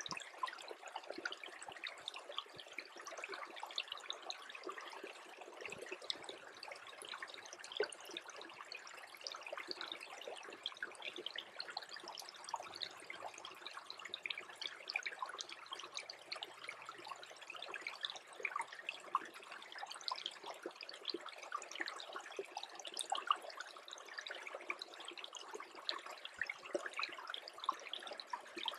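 A small creek freezing over, its water trickling steadily with a dense patter of tiny drips and gurgles.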